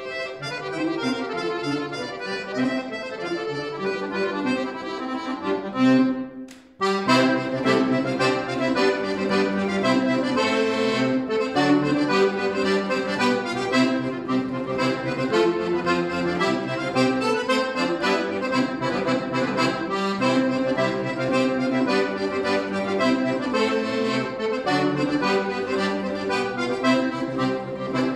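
Scandalli piano accordion played solo: a busy passage of many quick notes, broken by a short pause about six seconds in, then coming back in loudly.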